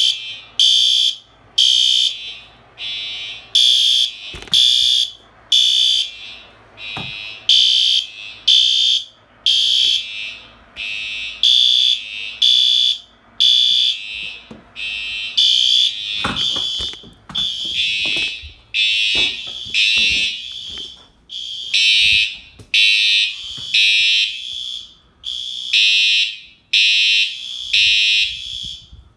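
Several fire alarm horns sounding at once and out of step, giving a loud, uneven stream of short, high-pitched electronic pulses. A few faint knocks come through about a third and halfway in.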